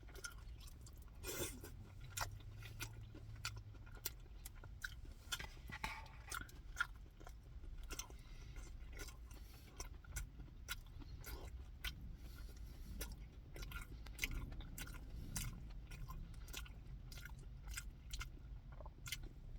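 A person chewing food close to the microphone, many short mouth clicks and crunches, over a steady low hum.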